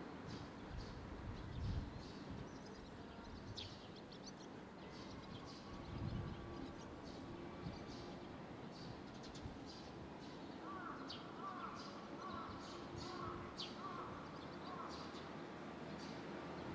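Barn swallow fledglings waiting to be fed, giving short, high, thin chirps scattered throughout. From about ten seconds in, a run of about seven lower, repeated curved notes joins them over a low background rumble.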